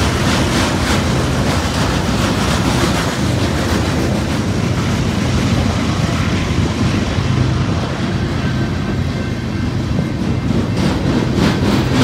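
Freight cars of a long manifest train rolling past at speed: a steady low rumble with the repeated clacking of wheels over the rail joints, more distinct near the end.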